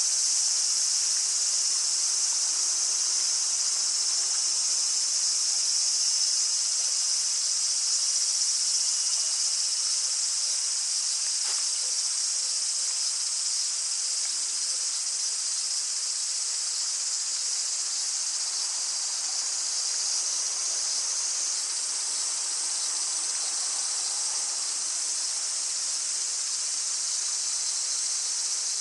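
A dense, steady chorus of cicadas buzzing, with light rain falling on the water under it.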